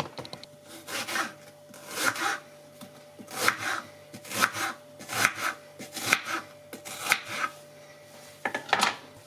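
Kitchen knife slicing through a red onion on a wooden cutting board: short crunching strokes about once a second, each cut ending on the board.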